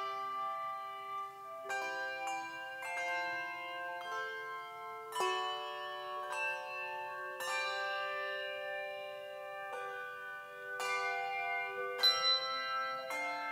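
A four-ringer handbell choir playing a piece of music: melody notes and chords struck every second or two, each bell ringing on and overlapping the next, with a louder strike near the end.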